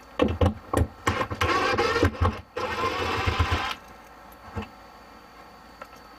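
Cordless drill backing out a screw: several short bursts of the motor, then a longer steady run that stops a little under four seconds in, followed by a few light clicks.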